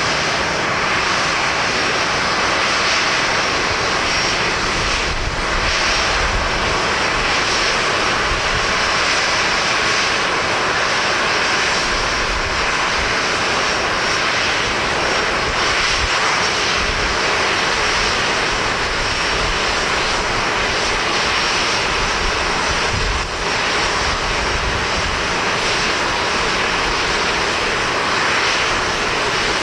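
Large jet airliner taking off, its engines at takeoff thrust making a loud, steady noise, with irregular low rumbles of strong wind on the microphone.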